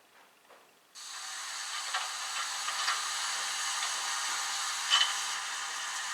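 Ixion J class model steam locomotive's DCC sound decoder switching on about a second in, playing a steady steam hiss through its small speaker, with a few faint clicks.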